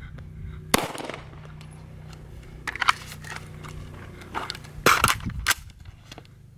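Gunshots fired a few at a time with gaps: one about a second in, a weaker cluster of sharp cracks around three seconds, and the loudest shots around five seconds, from an AR-style rifle after a switch from a pistol.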